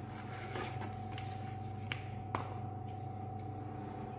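Steady low electrical hum with a faint, constant high whine, and a few light taps and clicks of hand handling, the sharpest about two and a third seconds in.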